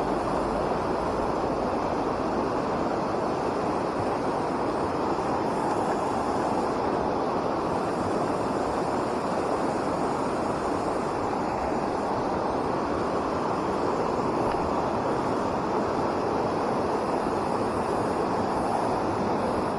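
Fast mountain stream rushing steadily through rocky pocket water, an even, unbroken water noise.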